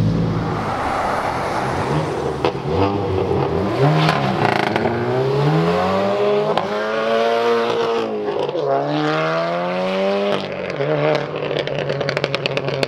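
Car engines pulling away hard. One engine note climbs as it revs up, drops at a gear change and climbs again.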